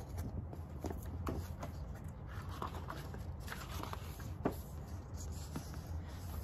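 Paperback picture book being handled, its pages rustling and clicking as they are turned to the next spread, over a faint steady low hum.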